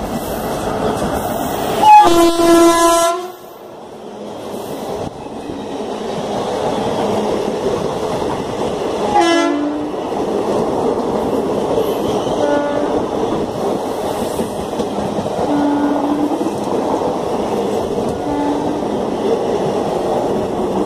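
Electric locomotive horn (WAP4) sounding one loud blast about two seconds in, lasting about a second, then a shorter toot that drops in pitch near the middle. Between and after them the passenger coaches run past with a steady rolling noise of wheels on rail.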